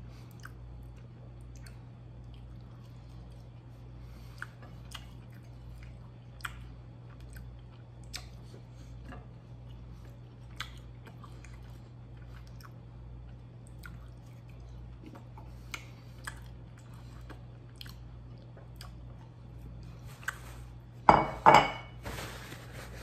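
A person chewing sauce-soaked breaded plant-based chicken nuggets, with scattered small mouth clicks over a faint steady low hum. Near the end comes a brief loud rustle of a paper towel being pulled and handled.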